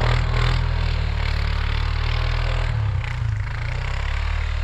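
A vehicle's engine running steadily under a continuous rushing noise, as when driving.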